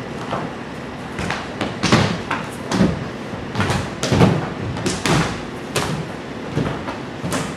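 Bare hands, feet and body thumping and sliding on a wooden floor during rolling, crawling floor movement: irregular thuds, the loudest about 2 and 4 seconds in.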